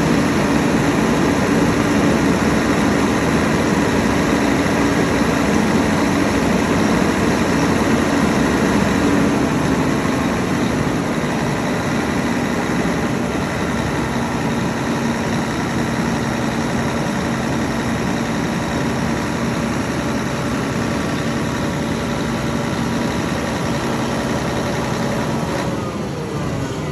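Heavy-duty diesel generator running steadily with a low hum and several steady tones. Near the end its pitch starts to fall as the engine is shut down and begins to spin down.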